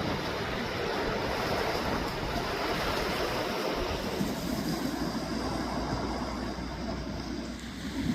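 Sea surf: waves washing in a steady rush of water. A low, steady rumble joins about halfway through.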